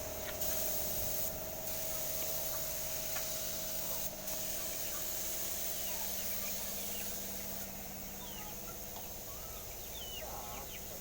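Small birds chirping in short sweeping calls, more often in the second half, over a steady mechanical hum and a high hiss that drops out briefly twice.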